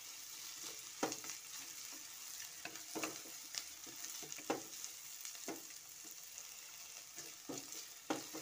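Sliced onion, cabbage, carrot and capsicum sizzling in hot oil in a pan while being sautéed, with a spatula scraping and tossing them in irregular strokes about once a second.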